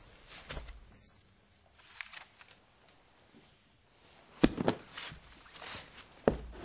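Books being handled: soft rustling and small clicks, a sharp thump about four and a half seconds in and another knock near the end, as books are shut or set down.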